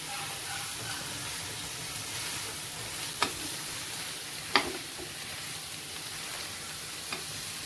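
Chicken strips and sauce sizzling in a hot pan as they are stirred, with two sharp knocks of the spatula against the pan, about three and four and a half seconds in.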